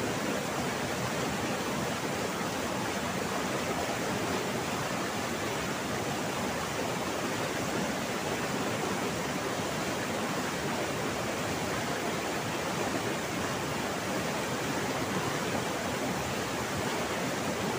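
Waterfall water rushing in a steady, even roar of noise with no breaks.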